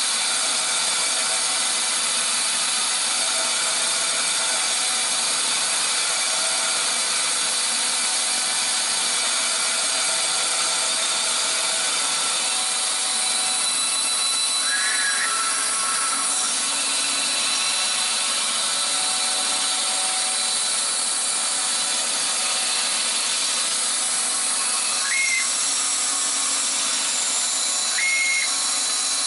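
14-inch bandsaw with a 1/4-inch blade running steadily while cutting curves in 3/4-inch plywood. A few brief high squeaks sound, one near the middle and two near the end.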